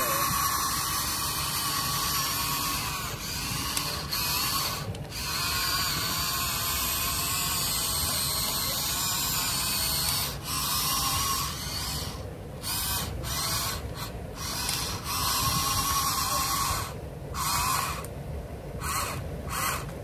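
Small geared electric motors of RC excavators, a Huina 1593 among them, whining and buzzing as the arm, bucket and tracks move, stopping and starting again several times with short pauses, more often near the end.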